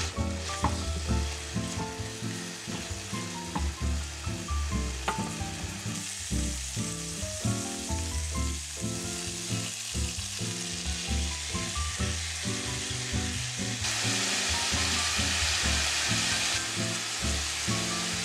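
Sliced onion and shredded cabbage sizzling in hot oil in a frying pan, stirred with a wooden spatula. The sizzle gets louder for a few seconds near the end. Soft background music plays underneath.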